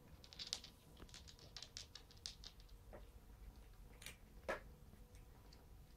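Faint, quick crackling of a Birman cat crunching dry kibble, for the first two to three seconds. Two sharper clicks follow about two thirds of the way through.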